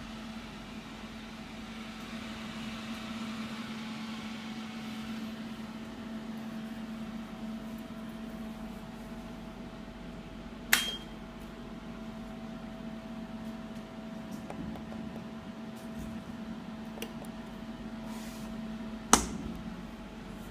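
A steady hum, with two sharp clicks about 11 and 19 seconds in from the power rocker switch and controls on the front panel of an Indotherm 500 shortwave diathermy unit; the second click is the louder.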